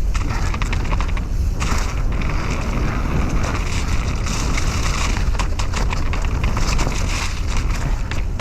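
Mountain bike running down a dirt trail: wind rumbles steadily on the microphone, and the tyres and bike give off many quick rattles and knocks over the bumps.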